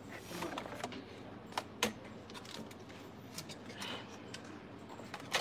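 Light clicking and rattling of a plastic eyelash tray being handled, with a couple of sharper clicks about a second and a half in and another just before the end.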